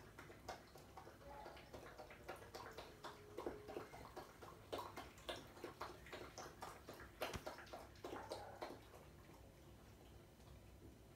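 Puppy rummaging and pawing in a pile of blankets, giving faint, irregular rustling and scratching clicks.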